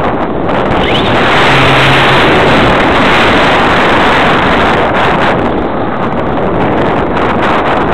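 Loud, steady wind rush buffeting the microphone of a FlyCamOne2 camera mounted under the wing of a radio-controlled model motor glider in low flight.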